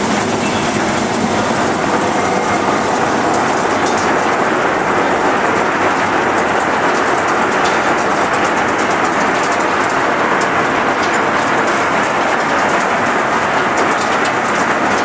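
Olive mill intake machinery running steadily, with a mass of olives rattling and tumbling over a perforated stainless-steel grate and hopper. It makes a loud, continuous clatter of many small hard clicks over a machine rumble.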